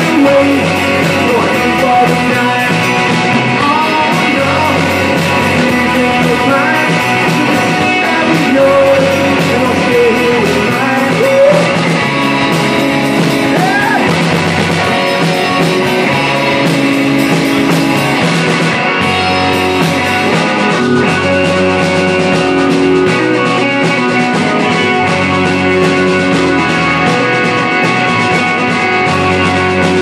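Live amplified rock band playing: electric guitars, electric bass, drum kit and keyboard.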